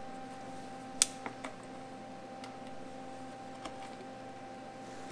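A sharp click about a second in, then a few fainter ticks, from a hand tool and hose being handled, over a steady electrical hum.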